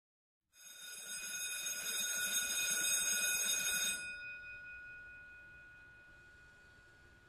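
A bell rung rapidly for about three and a half seconds, a rough clattering ring with several steady high tones, then stopping abruptly and left to ring out, dying away slowly.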